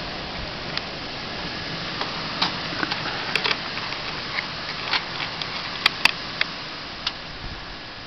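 Steady rushing blizzard wind, with scattered sharp clicks and ticks through it, the loudest a close pair about six seconds in.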